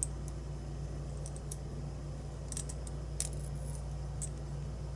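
Scattered light metallic ticks and clicks of small lock pins and springs being handled and laid out, over a steady low hum.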